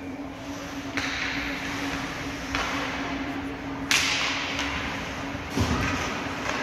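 Ice hockey play: skate blades scraping the ice and sticks and puck clacking, heard as about four sharp strokes that each trail off in a hiss, over a steady hum.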